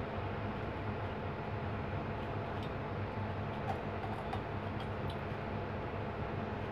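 Steady low hum of room noise, with a few faint clicks around the middle as a plastic straw taps inside a glass jar of banana shake.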